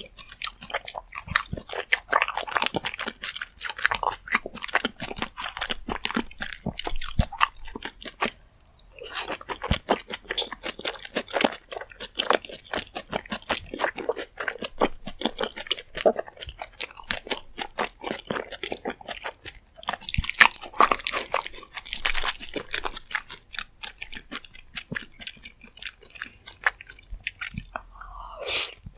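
Close-miked eating sounds of rose jjimdak, braised chicken and flat glass noodles in a creamy spicy sauce: continuous wet chewing with crunchy bites, with a short pause about eight seconds in.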